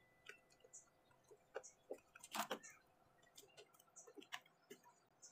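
Near silence with faint, scattered clicks and ticks, a slightly louder little clatter about halfway through: a screwdriver and small screws being handled at a metal seat bracket.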